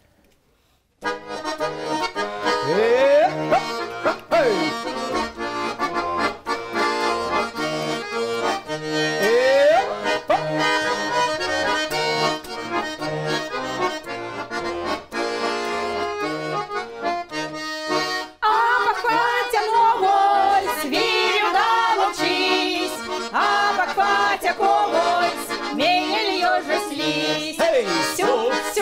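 Tula button accordion playing a lively folk tune with a steady rhythm, starting about a second in. The music breaks off briefly about two-thirds of the way through, then resumes fuller.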